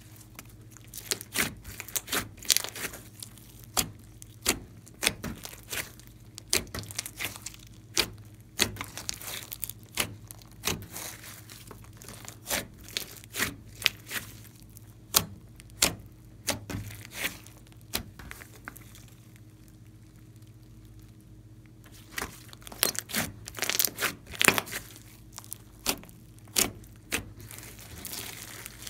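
Glossy slime mixed with clay and glitter being squeezed and folded by hand, giving irregular sharp popping clicks of trapped air. The pops thin out for a few seconds about two-thirds of the way through, then come thick and fast again.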